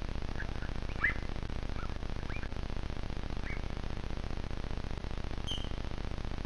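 Cougars chirping: a scattered run of short, high, bird-like chirps, the loudest about a second in and a higher one near the end, over a steady low hiss.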